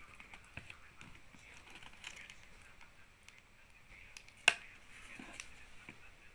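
Faint rustling and scraping of a cardboard banknote folder being handled and its taped edge slit with a small blade, with one sharp click about four and a half seconds in.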